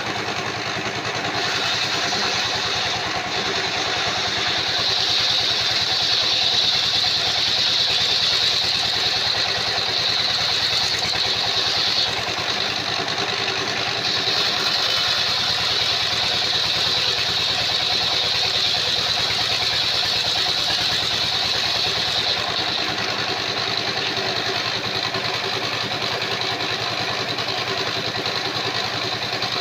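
Engine-driven circular-disc sawmill running steadily: a motor hum with a steady high whine over it, a little louder in the first half.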